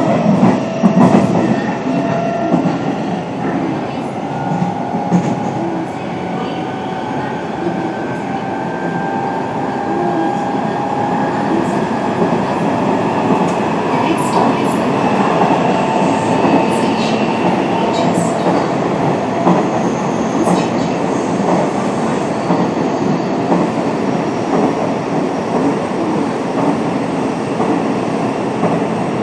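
Hanshin 1000 series train running on the line, its Mitsubishi IGBT-VVVF inverter and traction motors whining in several tones that climb slowly through the first half. Underneath is a steady rumble of wheels on rail with occasional clicks.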